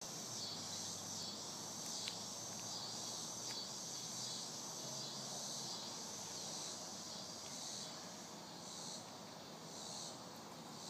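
Insects calling in a steady high-pitched chorus, breaking into swells about a second apart near the end, with a faint click about two seconds in.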